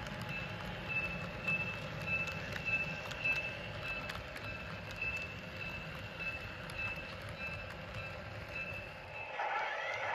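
HO scale model freight cars rolling along model track: a steady low rumble with scattered light clicks from the wheels over rail joints, and a faint high-pitched chirp repeating about every half second. About nine seconds in the sound changes to a steadier, higher hiss.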